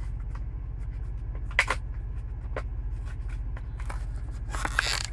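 Plastic blister pack and card backing being pried open by hand: scattered clicks and crackles, one sharp crack about a second and a half in, and a denser crinkling rustle near the end. A steady low hum runs underneath.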